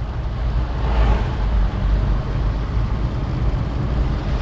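Car engine and road noise heard from inside the cabin while driving, a steady low rumble.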